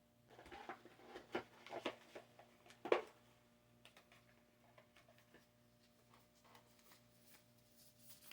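A deck of tarot cards being handled and shuffled: a flurry of soft rustles and snaps in the first three seconds, ending in a sharper tap, then only faint scattered ticks over a low steady hum.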